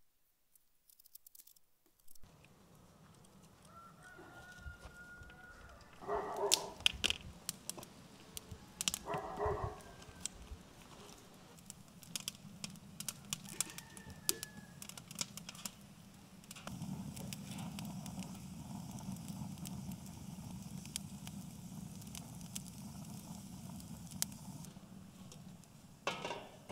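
A rooster crowing twice, about six and nine seconds in, over scattered light crackling and ticking from a wood fire. From about two-thirds of the way through, a low steady rumble comes in underneath.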